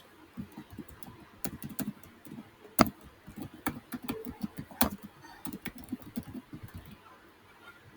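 Typing on a computer keyboard: a run of irregular key clicks, with one louder keystroke about three seconds in.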